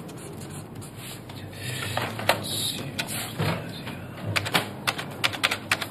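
Desk telephone being picked up and dialed: a few knocks as the handset is lifted, then a quick run of sharp clicks from the dial near the end.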